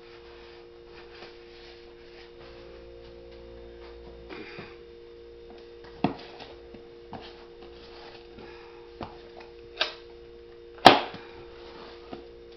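Frozen food packages being handled and set down into a storage box: scattered knocks, the loudest with a short ring about eleven seconds in, over a steady two-tone hum.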